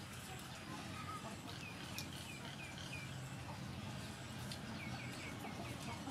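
A bird calling: two runs of short, falling chirps, five or six in each, the first about a second and a half in and the second near the end, over steady low background noise.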